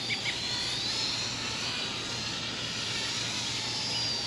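Parrot Bebop 2 quadcopter's electric motors and propellers whining in flight, the pitch drifting slowly up and down.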